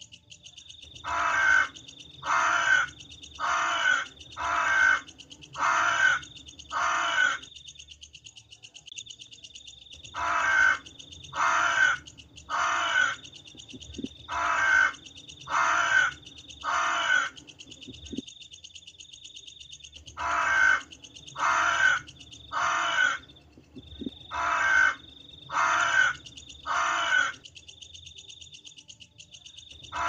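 Crows cawing: harsh caws in three runs of six, about one a second, with pauses of a few seconds between runs. A steady high-pitched trill and a low rumble run underneath.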